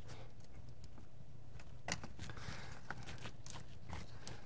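Small clicks and rattles of plastic injector harness connectors being unclipped from the fuel injectors of a GM LT1 engine, with one sharper click about two seconds in, over a steady low hum.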